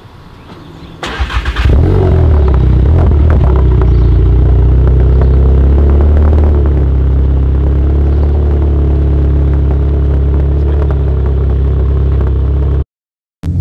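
VW MK7 Golf GTI's turbocharged 2.0-litre four-cylinder engine starting about a second in, flaring briefly, then settling into a steady idle heard close to the exhaust. It cuts off suddenly near the end.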